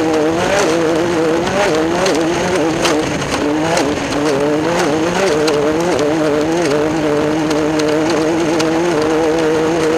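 Class 10 off-road race car's engine running hard and continuously, its pitch wavering up and down with the throttle, with scattered sharp knocks and clicks over it.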